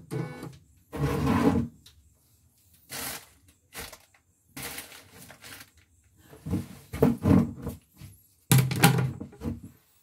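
Irregular knocks and rubbing handling noises, several short bursts about a second or two apart.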